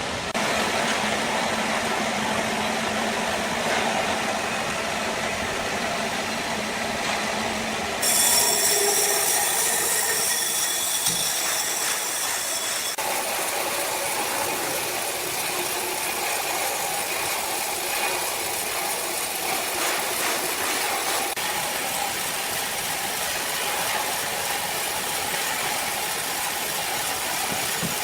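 Sawmill machinery running with a steady mechanical rattle. The sound shifts abruptly about eight seconds in, when a high steady whine joins, and again about thirteen seconds in.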